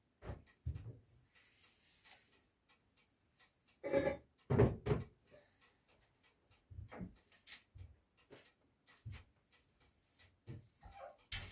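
Scattered knocks and clatters of cleaning at a small stainless-steel kitchen sink, with louder knocks about four and five seconds in and a sharp click near the end.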